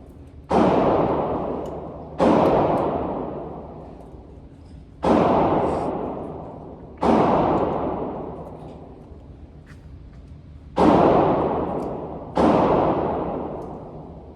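Six single handgun shots fired slowly, one to four seconds apart. Each is a sharp crack followed by a long echoing decay.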